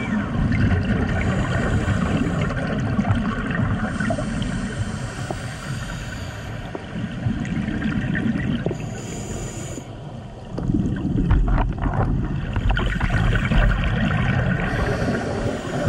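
Scuba breathing heard underwater: the regulator's exhaled bubbles rumbling and gurgling in long stretches, with a brief hiss about nine seconds in and a louder bubbling rumble from about ten and a half seconds on.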